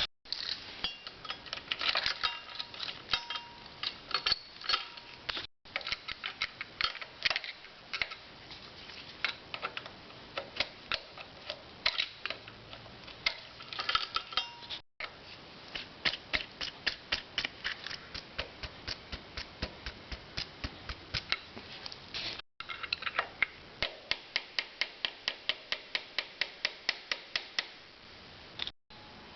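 Runs of quick, evenly spaced metallic clicks and taps, about five or six a second at times, from a hand tool working the threaded ring of the ignition switch lock holder.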